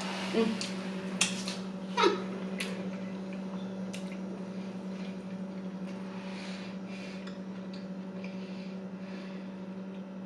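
Soft clicks and rustles of slider boxes and food being handled, over a steady low hum.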